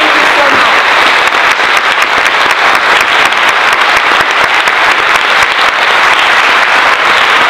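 An audience applauding: many hands clapping at once in a dense, steady patter.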